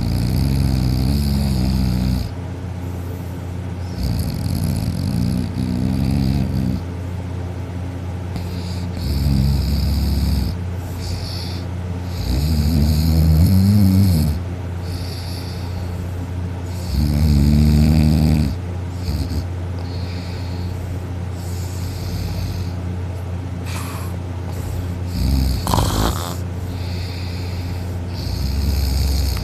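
A sleeping person snoring loudly, one long low snore every few seconds, with a longer pause in the second half, over a steady low hum. A brief sharper sound comes near the end.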